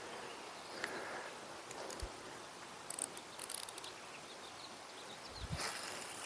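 Faint outdoor ambience with insects chirping in short, very high-pitched bursts, in several clusters.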